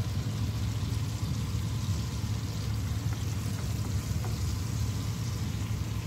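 Butter and olive oil sizzling steadily in a frying pan as a floured chicken breast is laid in, with a low steady hum underneath.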